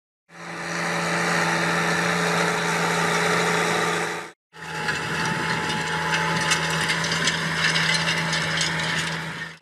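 Case IH Maxxum tractor running steadily under load while pulling a field cultivator through dry soil, with many small clicks and rattles from the implement over the engine note. The sound cuts out for a moment about four and a half seconds in and resumes the same.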